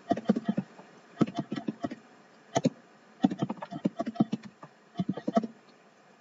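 Typing on a computer keyboard: runs of quick key clicks in short bursts with brief pauses between them.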